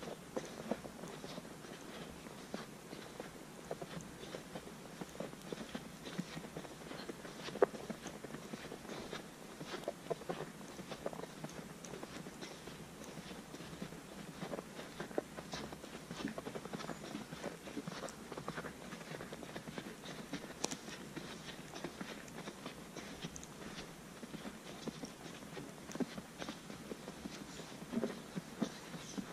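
Footsteps crunching in fresh snow: a steady run of small, irregular crunches over a faint hiss.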